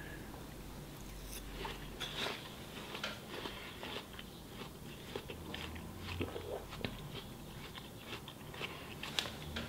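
A person chewing a mouthful of watermelon with the mouth closed: faint, irregular little crunches.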